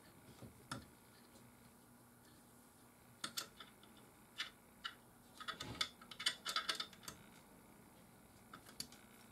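Allen wrench clicking against a screw and the stand as the screw is tightened by hand: scattered light clicks, bunched around the middle.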